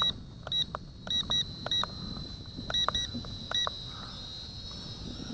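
A toy quadcopter's radio transmitter beeps about eight times in the first four seconds, in short high single and double beeps, as its stick is pressed to toggle modes. On this transmitter two beeps signal headless mode and one beep signals one-key return. A faint steady high whine runs underneath.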